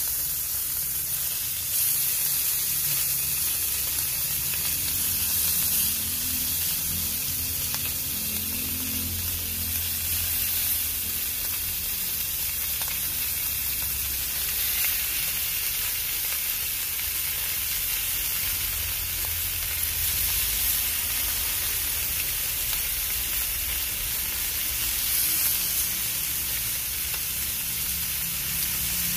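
Whole galunggong (round scad) sizzling steadily on a hot grill pan as more fish are laid on.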